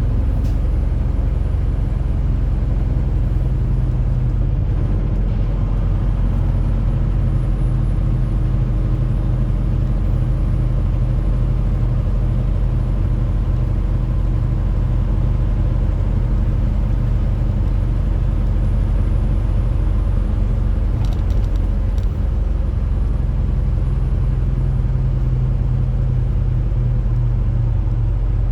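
Truck engine running steadily, a low constant drone with road noise over it, with a few faint clicks about 21 seconds in.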